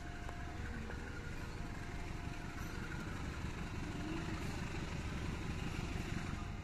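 Diesel locomotive engine running with a steady low rumble as it hauls a passenger train slowly out of the station.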